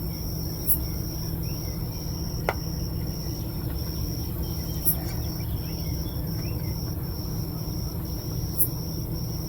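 Crickets chirping in an evenly pulsing, high-pitched trill over a steady low rumble. A few light clicks come about a second in, near two and a half seconds, near five seconds and near the end, from the part being fitted to the diesel heater.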